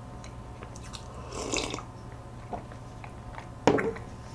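Close-up eating and drinking sounds: a sip of milk from a glass about one and a half seconds in, then chewing with small mouth clicks. A sharp knock near the end as the glass is set down on the table.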